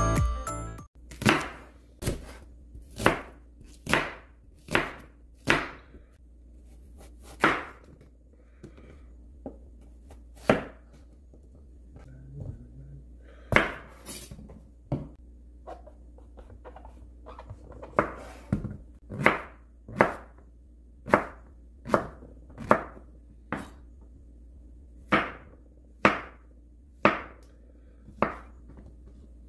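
Chef's knife slicing king oyster mushrooms on a wooden cutting board: a sharp knock on the board at each cut, about one a second, with a short pause partway through.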